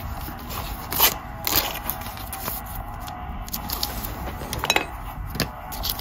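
Panini football trading cards handled by hand: cards sliding and scraping against each other, with sharp rustles about a second in and again near the end.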